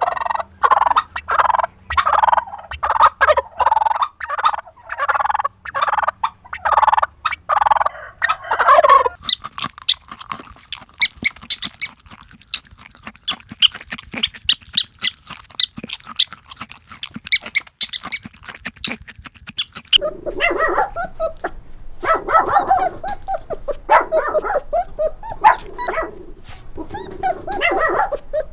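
Farm poultry calling: a dense run of repeated calls for about nine seconds, then about ten seconds of high, rapid chirping, then more calls again near the end.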